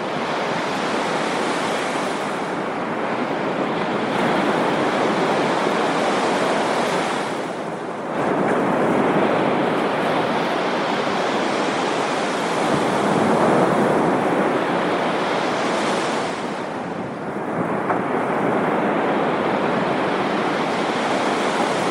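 Ocean surf breaking and washing up a sandy beach, a continuous rushing that swells as new waves break about eight and seventeen seconds in, with wind buffeting the microphone.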